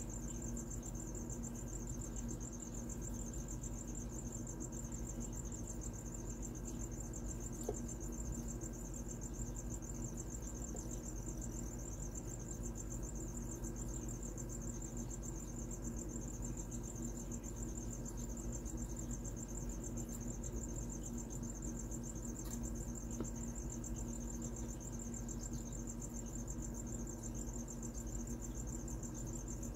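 Steady, high-pitched cricket trill, over a low steady hum.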